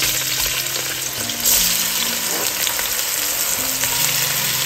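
Sliced onions dropped into hot oil in a pot, the oil sizzling; the sizzle grows louder about a second and a half in as more onion lands.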